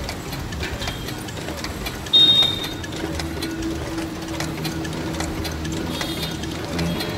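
A small motor running steadily with a rapid rattle, and a short, high-pitched beep about two seconds in.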